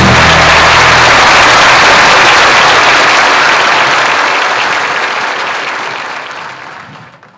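Audience applauding in a dense, steady wash of clapping that fades out steadily over the last three seconds or so. A little music carries into the first second.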